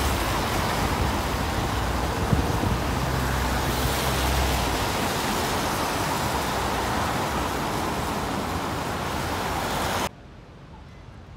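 City road traffic on wet tarmac: a steady hiss of tyres and passing vehicles, with a low engine rumble close by that fades out about halfway through. The sound cuts off suddenly near the end.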